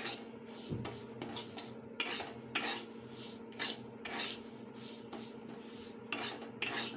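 Metal spatula scraping and stirring semolina in an aluminium kadai, about two scrapes a second. The semolina is being kept moving while it dry-roasts, so that the bottom does not catch.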